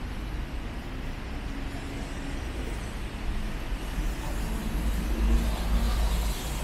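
Traffic on wet city streets in the rain: a vehicle's engine drone and tyre hiss swell louder from about halfway through, over a steady low rumble and the hiss of rain.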